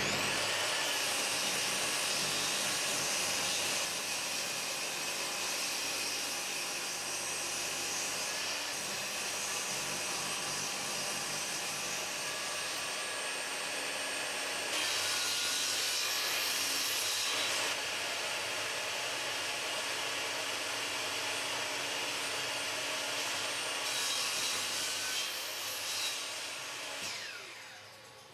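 Benchtop table saw running and ripping a strip of glued-up two-layer multiplex plywood along the fence, the cut growing louder for a few seconds about midway and again later. Near the end the saw winds down and stops.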